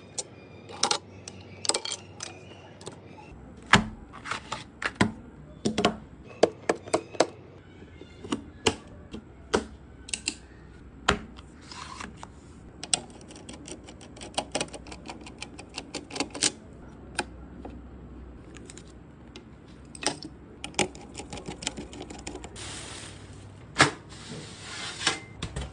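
Irregular sharp clicks, taps and knocks of computer parts being handled and snapped into place during a PC build, with a brief scraping rub near the end.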